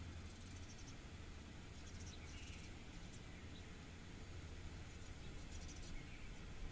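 Faint outdoor ambience beside a power station: a steady low hum under a light hiss, with a few brief, faint bird chirps now and then.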